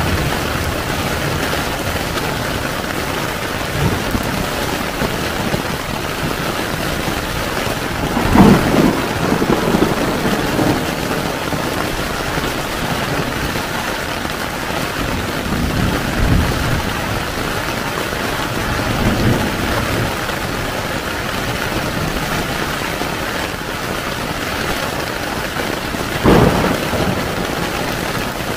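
Heavy rain falling steadily on a tent, with rumbles of thunder about eight seconds in and again near the end.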